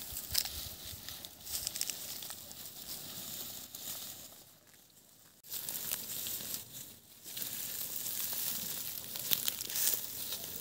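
Rustling and crinkling noise with many small clicks, falling away for about a second near the middle and then returning abruptly.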